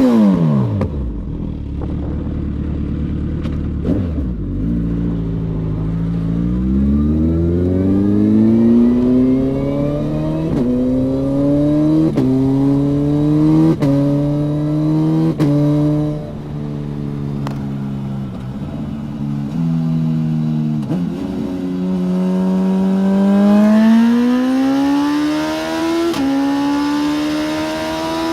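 Suzuki Hayabusa inline-four through an aftermarket Brock's exhaust, accelerating hard up through the gears: the engine note climbs and drops back at each upshift, about every one and a half seconds. It then holds a steadier note before revving up again near the end.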